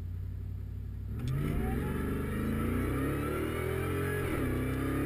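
Supercharged 5.4-litre V8 of a 2004 Ford SVT Lightning, heard from inside the cab, launching hard from a drag-strip start about a second in: the revs climb, fall sharply at an automatic upshift near the four-second mark, and climb again under full throttle.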